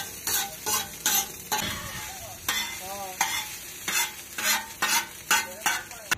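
Metal spatulas scraping and clanking on a flat iron griddle as chowmein noodles with egg and chicken are stir-fried, about two strokes a second over the steady sizzle of the frying.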